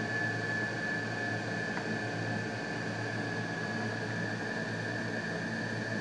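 Steady background hum and hiss with a thin, steady high-pitched whine, and one faint tick about two seconds in.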